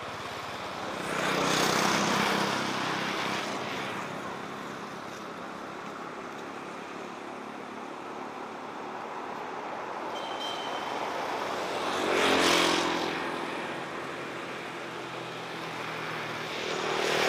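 Road traffic: vehicles pass by three times, each swelling up and fading away over a couple of seconds, over a steady background of traffic noise.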